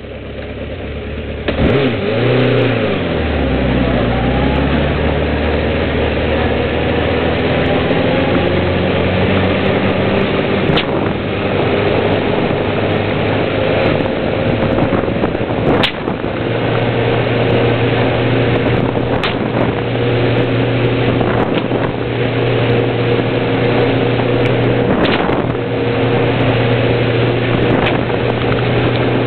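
Motorcycle engine revving hard about a second and a half in, then running steadily as the bike rides along. Several sharp cracks of a five-foot stockwhip ring out over the engine, the loudest a little past halfway.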